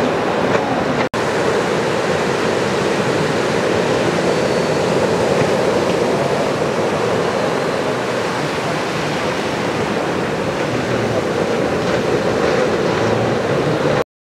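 Ocean surf: waves breaking and rolling in a steady, even rush of noise, with a split-second break about a second in. It cuts off suddenly near the end.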